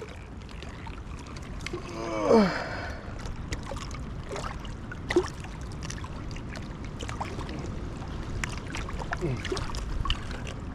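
Steady rush of river water with scattered small clicks and rustles of handling, and one short voice-like sound falling in pitch about two seconds in.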